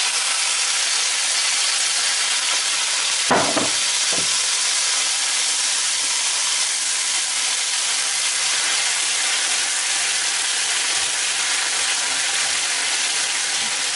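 Canned black beans and their liquid sizzling in a hot frying pan of oil and fried garlic: a steady, even hiss as the cold liquid hits the hot oil.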